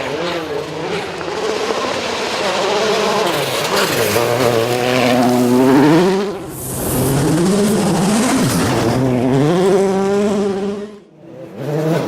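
Rally car engine revving hard, its pitch climbing and falling again and again as it accelerates and shifts gear. Just before the end the sound drops out briefly, then engine noise comes back.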